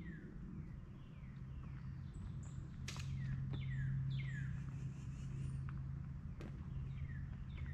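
A bird calling over and over, each call a short note sliding downward, over a steady low hum. A few sharp clicks break in.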